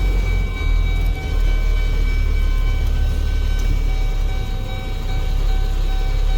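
A vehicle running: a steady, loud low engine rumble with faint steady whining tones above it.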